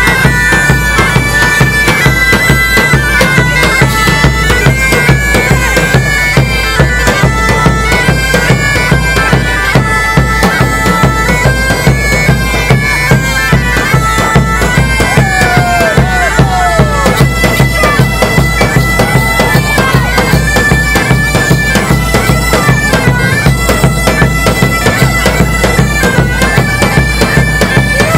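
Bagpipes playing a lively dance tune over a steady drone, with a large two-headed drum beating a regular rhythm under it.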